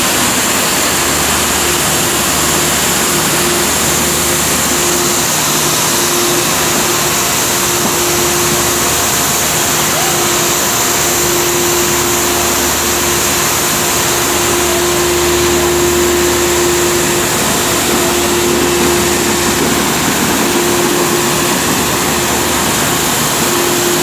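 Delfin Zefiro 75 three-phase industrial vacuum cleaner running steadily while its floor nozzle sucks up dust. It makes a loud, even rush of air over a constant hum.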